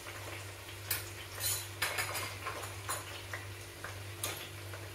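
A metal spoon clinking against a pressure cooker as salt is mixed into the vegetables: a handful of sharp, irregular clicks over a faint low hum.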